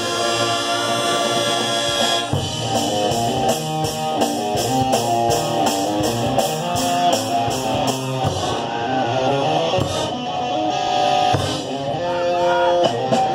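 High school marching band with its front ensemble playing the opening of its field show, a classical-and-rock crossover, with a steady beat coming in about two seconds in.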